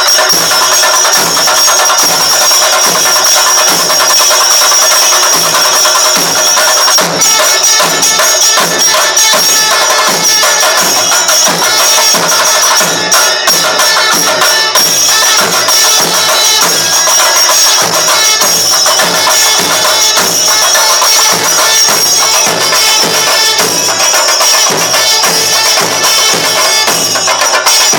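Kerala chenda drums beaten loudly in a fast, driving rhythm, with a continuous bright metallic ringing of cymbals over the strokes: traditional temple percussion accompanying a ritual dance.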